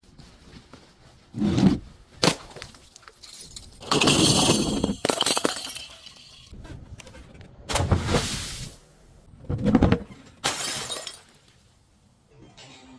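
Glass bottles breaking and being crushed: several separate crashes of shattering glass, one every second or two, some short and sharp, some a longer crunching spell.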